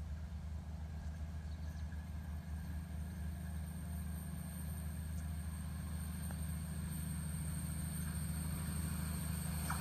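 Low, steady rumble of an approaching diesel train's engine, growing slowly louder as it nears.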